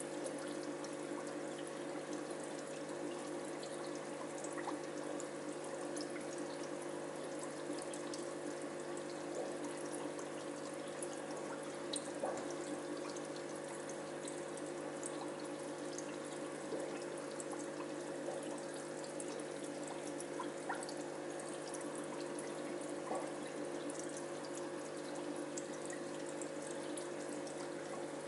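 Aquarium water trickling and splashing steadily, with faint drip-like ticks now and then, over a steady hum from the tank's running equipment.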